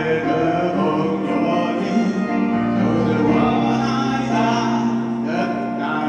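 Live pop song sung as a duet by a man and a woman, with piano and band accompaniment and held bass notes.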